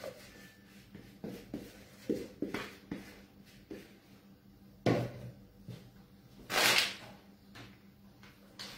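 Light knocks and taps of a plastic mixing bowl against a wooden pastry board as crumbly shortcrust dough is turned out, with a heavier thump about five seconds in and a short scrape about a second and a half later.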